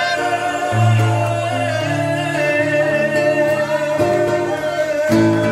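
Live singing with musical accompaniment: a singer holds one long note that sags slightly in pitch, over sustained accompaniment chords that change every second or so.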